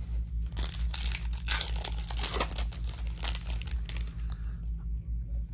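Foil trading-card pack wrapper crinkling and tearing as a pack is opened, a dense run of crackles from about half a second in that dies away after about four seconds. A steady low hum runs underneath.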